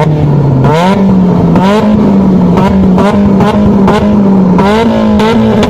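Modified car engine running at raised revs and being blipped repeatedly, with a sharp crack on each blip, about every half second to a second.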